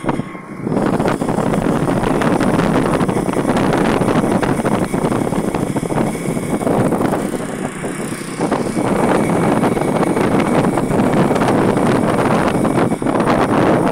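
A vehicle's engine running as it drives along a road, with wind on the microphone; the noise dips briefly about half a second in and again around eight seconds.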